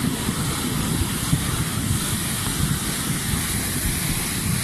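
Fast torrent of muddy floodwater rushing: a loud, steady rushing roar with a rumbling low end.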